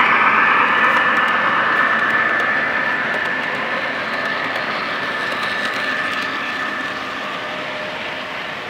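Lionel three-rail O-gauge model freight train rolling past on its track, a steady rolling rumble with a thin high whine, fading gradually as the train pulls away.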